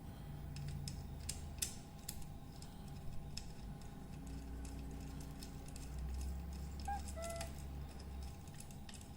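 Scattered small clicks and metallic handling sounds as a live wire is fitted into a power socket's terminal, over a low steady hum.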